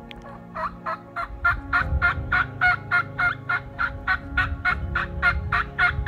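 Turkey call worked in a long, even run of hen yelps, about three a second, starting about half a second in and running on for some five seconds, loud and close.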